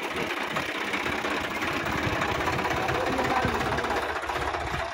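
Sonalika Supreme DI-50 RX tractor's diesel engine running steadily.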